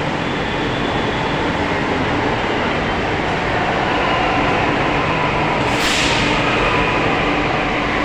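Delhi Metro train moving along the platform at close range: a steady rumble with a faint whine, and a short hiss about six seconds in.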